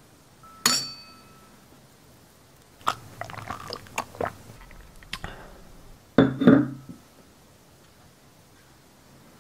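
A wine glass clinks once with a short ring. Then comes a run of irregular wet clicks and splats as thick blue liquid is tipped from the glass into a china bowl, and a louder knock about six seconds in.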